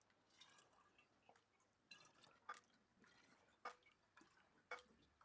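Faint, irregular drops of lemon-juice concentrate dripping into a bottle, a few drips about a second apart.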